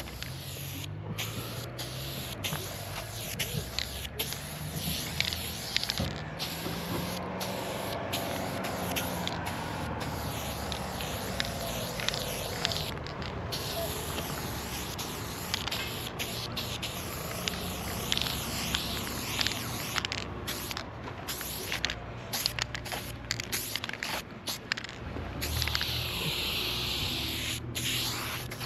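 Aerosol spray paint can fitted with a wide Big Shotty Ultra cap, hissing as it sprays thick strokes of paint onto a wall. The spray runs in long stretches with many brief breaks where the cap is let go.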